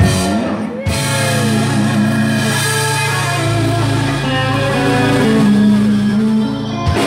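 Live rock band ringing out the final held chord of a song, electric guitar and bass sustained with cymbals washing over them, then stopping sharply just before the end.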